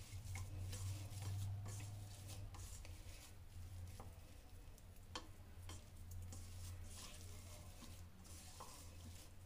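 Faint squishing and rustling of hands kneading soft mashed potato mixture in a plastic bowl, with a couple of sharp ticks about four and five seconds in, over a low steady hum.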